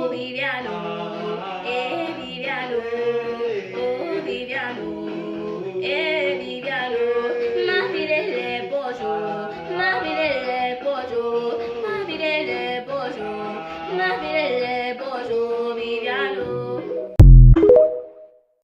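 Singing voice over musical accompaniment, a wavering sung melody. Near the end it breaks off with one loud thump.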